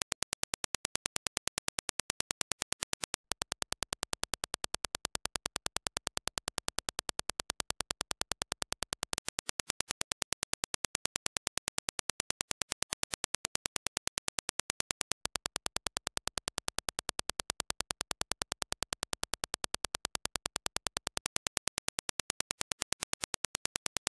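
Reference Dirac impulse test signal: a steady train of sharp, evenly spaced clicks, several a second.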